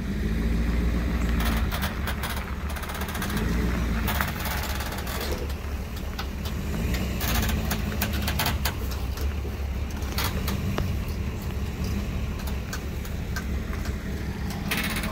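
Ford F350 dually pickup's engine pulling a fifth-wheel trailer at crawling speed, a heavy low rumble that swells and eases off several times as it is throttled on and off. Scattered clicks and crackles come through over it.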